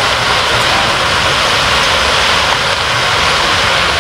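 Bottle gourd greens, pumpkin and beans frying in mustard oil in a wok: a steady sizzling hiss.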